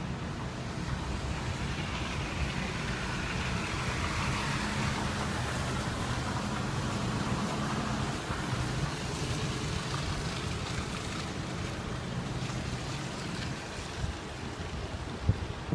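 A motor vehicle's engine humming under a steady rushing noise that swells over the first few seconds and eases off in the second half.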